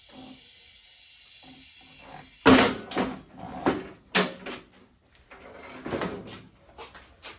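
A steady hiss for about two seconds, then a run of loud metal clunks and rattles as a CT70-clone minibike is taken down off its stand and set on the floor.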